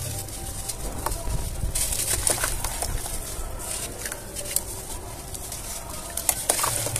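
Hands crushing soft blocks of cement under water in a basin: water sloshing and splashing, with short wet crackles as the crumbling cement breaks apart.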